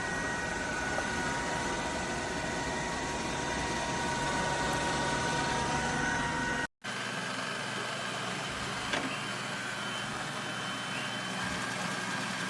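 iRobot Roomba robot vacuum running: a steady whirring hiss with a few high, steady whines. About seven seconds in the sound drops out for a moment, then resumes with different whines and without the low rumble.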